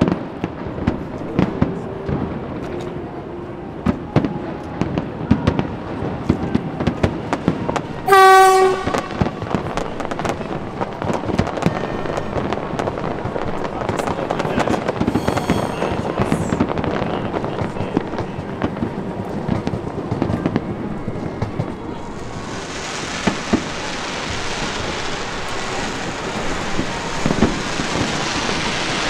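Fireworks going off: repeated bangs and crackles. About eight seconds in there is a short, loud horn blast. Near the end a dense, steady hiss sets in under the bangs.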